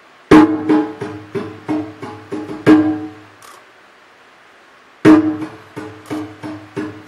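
Hand drum played live in quick rhythmic runs of pitched strokes: about nine strokes in under three seconds, a pause of about two seconds, then another run.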